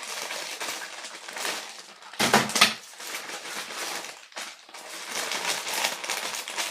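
Packaging being handled and unwrapped: continuous rustling and crinkling, with a louder crunch a little over two seconds in.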